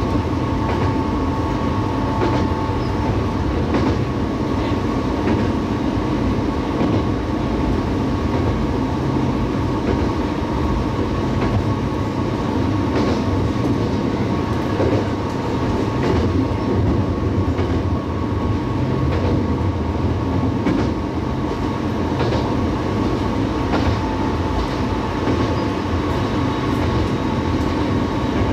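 Diesel railcar running at speed on single track: a steady engine and running drone with the wheels clicking irregularly over rail joints.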